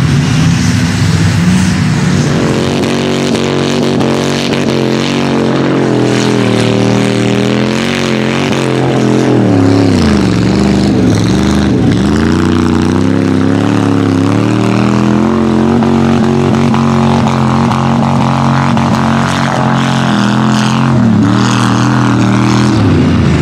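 Big lifted mud truck engines running at high revs while the trucks churn through deep mud on oversized tractor tires. The engine pitch holds high, dips and climbs back twice in quick succession about halfway through, and dips again near the end, over a steady hiss of spinning tires and spraying mud.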